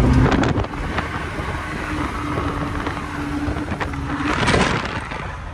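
BMW E46 3 Series engine and tyre noise heard inside the cabin during a drift run. The engine falls off from a loud run to a low steady hum in the first second, over tyre and wind noise, with a short rush of noise about four and a half seconds in.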